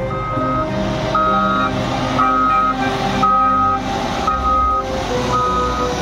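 Reversing alarm beeping steadily, about one half-second beep a second, over background music.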